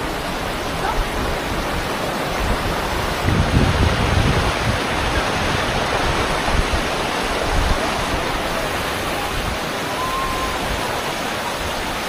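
Steady rushing of the Tumpak Sewu waterfall and the fast, swollen river below it: a dense, even noise of falling and running water. A brief low rumble comes about three and a half seconds in.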